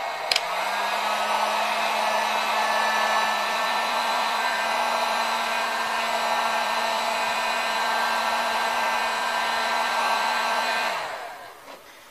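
Electric heat gun blowing steadily while shrinking heat-shrink tubing onto a power cord. Just after the start there is a click and its motor hum steps up slightly in pitch. The blower winds down and stops shortly before the end.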